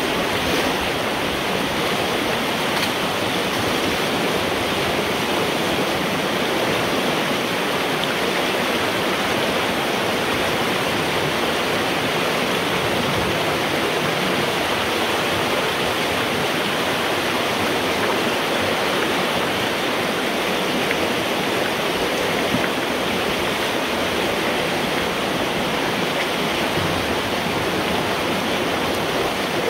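Water rushing steadily through a road culvert pipe, heard from inside the pipe, as the beaver-dam debris that blocked it is pulled out and the flooded pond drains through.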